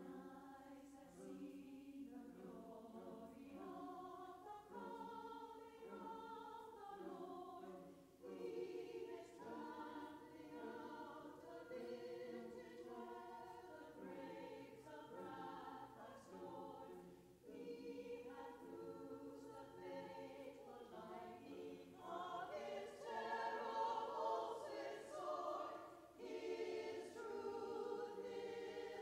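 Women's choir singing a hymn in several sustained vocal parts, swelling louder about three-quarters of the way through.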